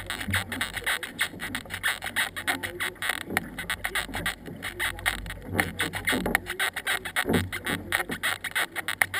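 Canoe paddles dipping and pulling through river water, with repeated splashes and water rushing along the racing canoe's hull, and wind rumbling on the microphone.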